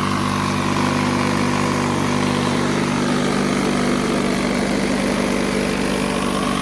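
Pull-start lawn mower engine running steadily and evenly after a full service with fresh oil, fresh gas and a cleaned coil pack and spark plug; it runs smooth.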